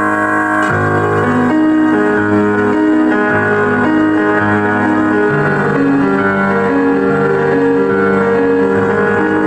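Hip-hop beat with a piano melody over sustained bass notes; the bass line comes in about a second in.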